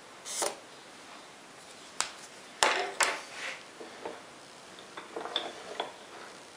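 Sharp clicks and knocks of metal being handled on a steel machine table: the two loudest come close together about three seconds in, with lighter ticks near the end.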